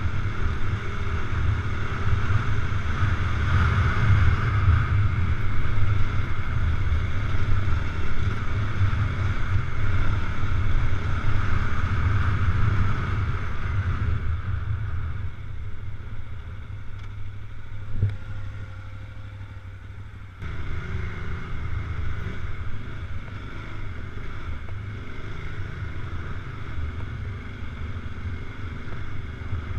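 Adventure motorcycle engine running under way on a sandy dirt road. About halfway through, the engine sound drops away for several seconds, with a single sharp knock, then picks back up.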